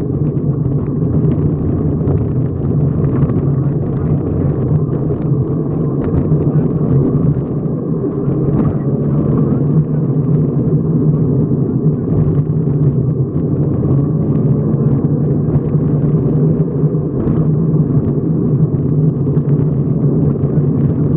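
Subaru rally car's flat-four engine running hard at speed, heard from inside the cabin as a steady loud drone, with gravel noise from the tyres crackling irregularly over it.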